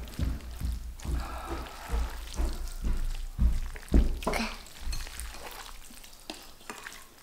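Sauce-coated jjajangmyeon noodles being lifted and tossed with metal chopsticks on a large platter to mix them: irregular wet slaps and squishes with soft knocks, the loudest about four seconds in, tapering off near the end.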